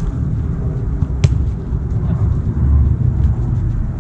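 Steady low rumble of wind on an action camera's microphone, with one sharp knock about a second in, a football being kicked.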